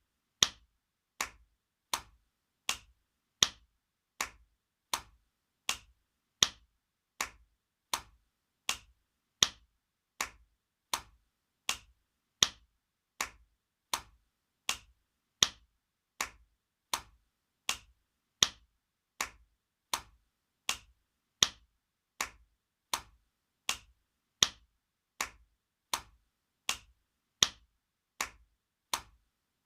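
Spanking sound effect: a hand slapping skin in sharp smacks repeating evenly, a little more than one a second, some smacks louder than others.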